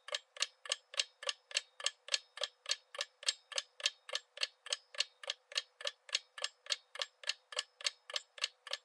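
Countdown timer sound effect: a clock ticking fast and evenly, several ticks a second, counting down the answer time on a quiz.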